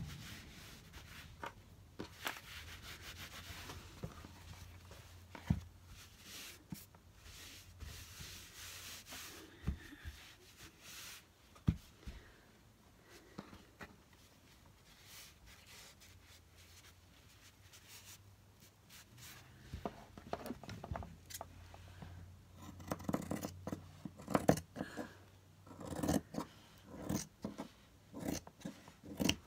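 Quiet handling noise of fabric being laid and smoothed by hand onto a glued board: scattered rustles, rubbing and light taps, getting busier after about twenty seconds.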